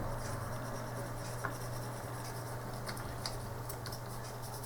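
Light rubbing and scratching as small joystick parts are handled and wiped clean, with a few faint clicks, over a steady low hum.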